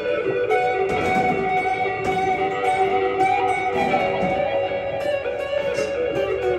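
Acoustic guitar played solo: a picked, wandering single-note melody over ringing, held notes, with quick pick strokes several times a second.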